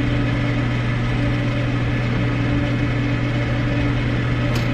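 A steady low machine hum, with a brief light click near the end.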